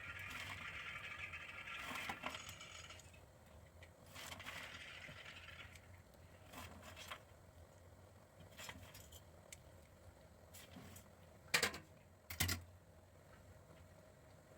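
Faint scraping and rustling of fried onions, cashews and raisins being spooned and scattered over biryani rice in a pressure cooker, with two short sharp clicks close together near the end.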